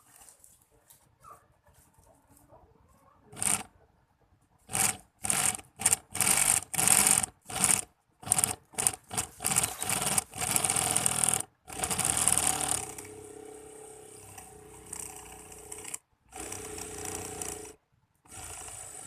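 Homemade 12 V mini screwdriver built from a 775 DC motor, pulsed in a string of short loud bursts and then run for longer stretches, as it drives a screw into a piece of firewood.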